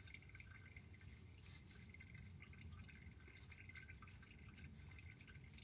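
Faint, irregular dripping of old engine oil from a 2017 GMC Yukon's open drain hole into a drain pan, as the drain slows.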